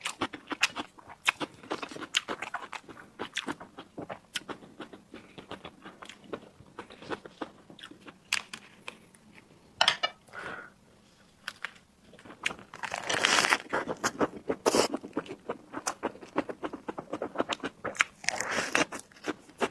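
Close-miked eating sounds: a person chewing and biting with wet mouth clicks, a brief vocal sound about halfway through, and two longer, louder noisy stretches of eating near the middle and end.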